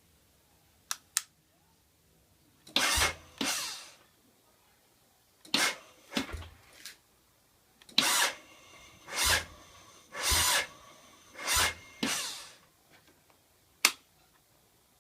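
Ducati Monster 795's electric starter motor cranking in about nine short bursts without the engine catching, so the bike won't start. A couple of sharp clicks come just before the cranking and another near the end.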